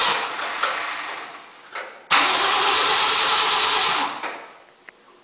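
Ford 352 V8 engine firing on fuel poured into the carburetor. It runs briefly and dies out about a second in, then catches again suddenly about two seconds in, runs for about two seconds and fades out. It dies each time because its carburetor bowl isn't taking fuel.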